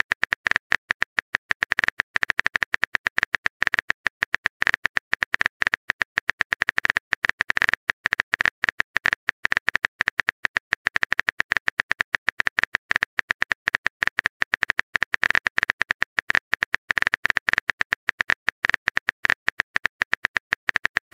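Phone keyboard typing sound effect: a fast, uneven run of key clicks, about ten a second, one per letter as a text message is typed.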